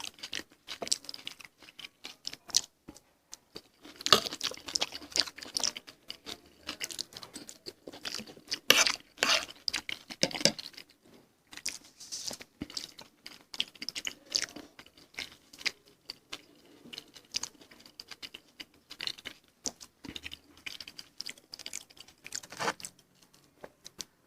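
Close-miked eating: biting into and chewing crisp Indian street snacks, with irregular crunches and crackles in clusters, loudest about four seconds in and again around nine seconds.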